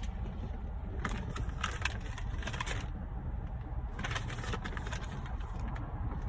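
Steady low rumble of a car idling, with scattered clicks and rustles of things being handled, in two clusters, early and again around the middle.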